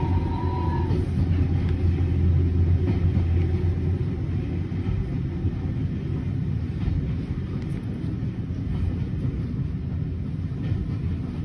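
Steady low rumble of a vintage steam-hauled railway carriage rolling slowly along the track, heard from inside the compartment, a little louder in the first few seconds.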